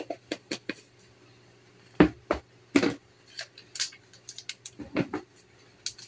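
Kitchen handling noises: a string of light clicks and knocks as items are picked up and set down on a table, with louder knocks about two and three seconds in and again around five seconds in.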